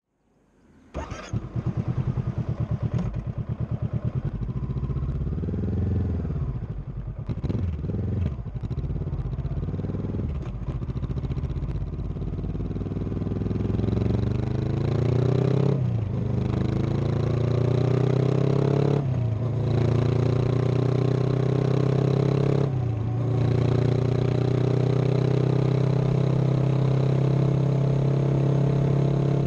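Honda CB500X's 471 cc parallel-twin engine and exhaust starting about a second in, then idling with a few revs. It then pulls away and accelerates, with the pitch climbing and three brief drops as it shifts up through the gears, and settles into a steady cruise near the end.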